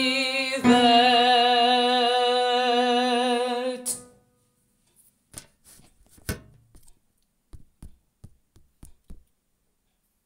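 Men's choir holding the final sung chord with vibrato, cutting off about four seconds in as the song ends. A scatter of faint knocks and clicks follows.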